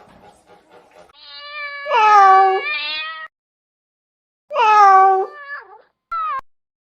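A domestic cat meowing three times: two long, drawn-out meows a couple of seconds apart, then a short one near the end.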